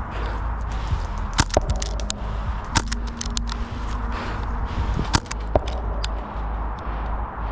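Airsoft gunfire: a handful of sharp snaps, some in quick pairs, over a steady low rumble.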